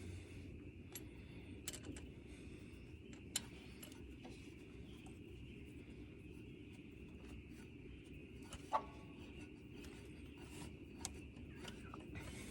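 Scattered light metallic clicks and clinks of hand tools being handled during work on the tractor. There are four or five of them, the sharpest about nine seconds in with a brief ring, over a faint steady hum.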